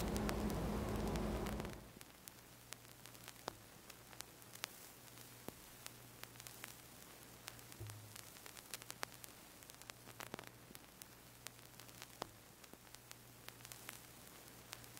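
A low droning tone cuts off about two seconds in. After it comes faint static hiss over a low hum, with scattered sharp clicks and crackles.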